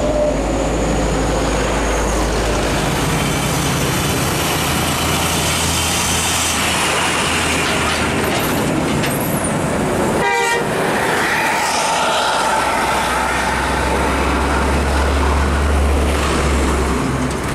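Hino 500 truck-and-trailer's diesel engine running loud as the loaded rig drives past close by, with a deep rumble and heavy road noise; a brief sharp sound cuts in about ten seconds in.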